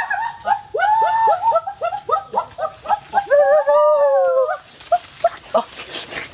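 High-pitched whining, howl-like cries: a quick string of short arching notes, then a longer note that falls away about four seconds in, after which it goes quiet apart from faint scattered sounds.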